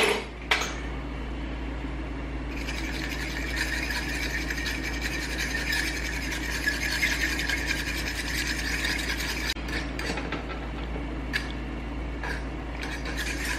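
Stirring and scraping in a cooking pan as a flour-thickened sauce is worked: a steady rasping that starts about two and a half seconds in and stops near ten seconds, after a couple of clicks at the start, over a steady low hum.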